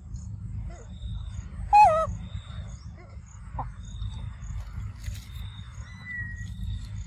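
A macaque gives one short, wavering squeal about two seconds in, falling slightly in pitch. Faint high chirping repeats in the background over a steady low rumble.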